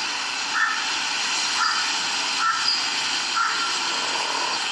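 A camera recording of chickens in a yard playing back through a phone's speaker: a loud, steady hiss with short calls every half second to a second.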